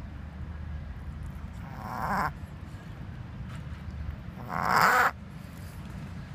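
Tibetan Spaniel reverse sneezing: two harsh, rasping inhalations of about half a second each, one about two seconds in and a louder one near five seconds, part of a run of repeated spasms.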